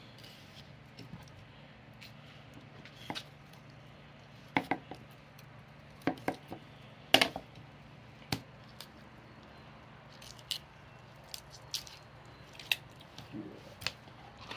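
Fillet knife cutting through buffalo fish rib bones on a metal table: scattered sharp clicks and cracks a second or so apart, the loudest in the first half, lighter ticks later.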